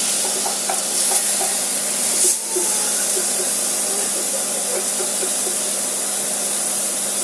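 Steak sizzling steadily as it fries in a non-stick pan, with a wooden spatula scraping and pressing it in the pan. A steady low hum runs underneath.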